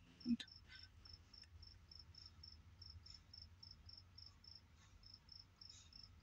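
A cricket chirping steadily, a little over three high chirps a second, faint, over a low hum.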